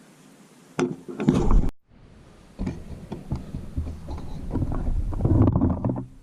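Irregular knocks and clattering close to the microphone. They cut off abruptly to silence just under two seconds in, then resume about a second later and build before stopping.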